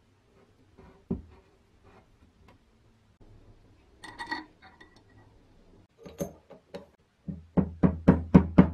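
A metal tube driven down a bench grinder's motor rotor shaft, seating a ball bearing. Scattered light metal clinks, one with a brief ring about four seconds in, then a fast, even run of about eight knocks near the end.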